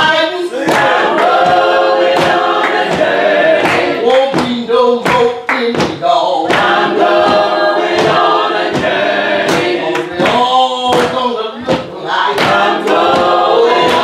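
A woman singing a gospel song with the church congregation singing along, several voices together. Sharp percussive strokes keep the beat.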